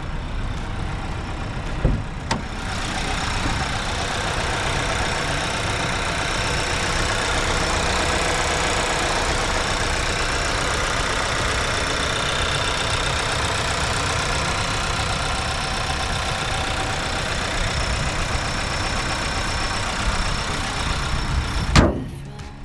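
Seat Arona's 1.5 TSI turbocharged four-cylinder petrol engine running steadily, heard from inside the cabin together with road noise while driving. There is a short knock about two seconds in and a louder one near the end.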